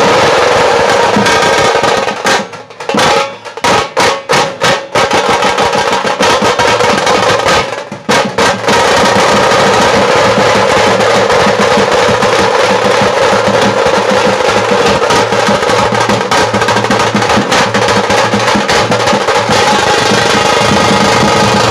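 Tasha drum ensemble playing a fast, dense roll with thin sticks. A couple of seconds in the roll breaks into a string of separate accented strokes with short gaps, pauses briefly around eight seconds, then runs on unbroken.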